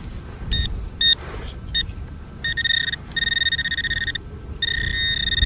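Handheld metal-detecting pinpointer probe sounding its alert tone as it is pushed through wet mud in a dig hole. It gives three short beeps, then longer tones, and near the end an almost continuous tone as the tip closes on the buried metal target.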